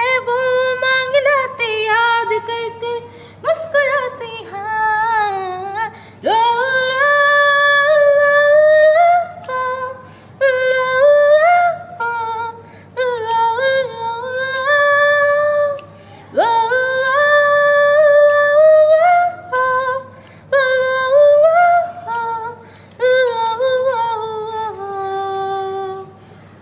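A woman singing a Hindi film song solo, in phrases of long held, wavering notes with short breaths between them and no clear words.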